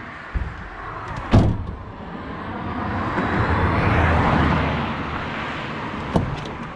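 A car passing on the road, its noise swelling to a peak about four seconds in and then fading. A sharp knock about a second and a half in is the loudest sound, and a smaller click comes near the end.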